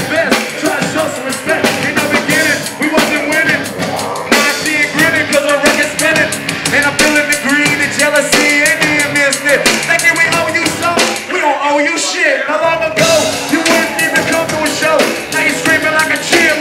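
Live rock band playing loud: pounding drum kit under electric guitar. The bass and kick drum drop out for about a second and a half near the twelve-second mark before the full band comes back in.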